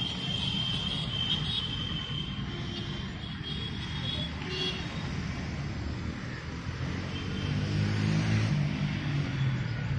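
Steady noise of distant road traffic, with a thin, steady high-pitched tone over the first four seconds and a low engine hum swelling near the end.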